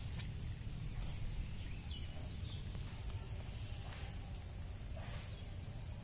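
Insects, crickets or similar, keeping up a steady high-pitched chorus over a low rumble, with a short falling call about two seconds in.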